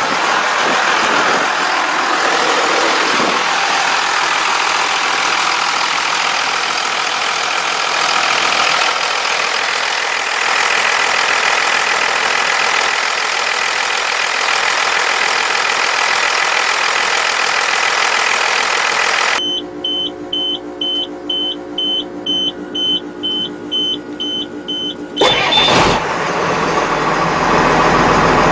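Cummins 5.9 diesel in a Ford F800 truck running steadily after its starter wire has been repaired and it has started. About two-thirds of the way in the engine sound drops away for several seconds and a high electronic beeping, about two beeps a second, sounds. It ends in a loud burst, and then the engine sound returns.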